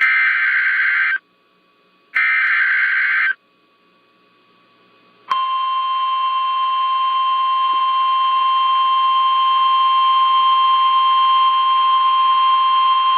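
NOAA Weather Radio Emergency Alert System signal for a severe thunderstorm warning: two screeching one-second bursts of digital SAME header data about a second apart, then, after a pause of about two seconds, the steady single-pitch 1050 Hz warning alarm tone comes on and holds.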